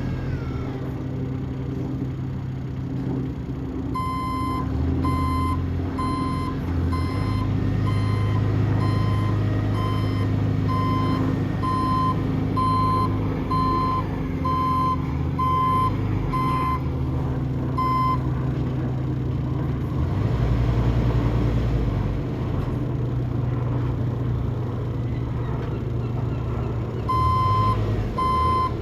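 Forklift engine running, its speed shifting up and down, with a reversing alarm beeping about once a second from a few seconds in for roughly fifteen seconds, then starting again near the end.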